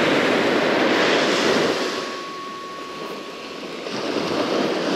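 Surf breaking on a sandy beach, with wind on the microphone. The rushing noise eases for about two seconds midway, then builds again.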